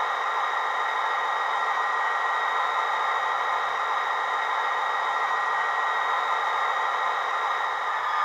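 Model Class 57 diesel locomotive's factory DCC sound decoder playing the engine idling steadily through a pair of small tablet speakers, with a steady high whine over the engine note.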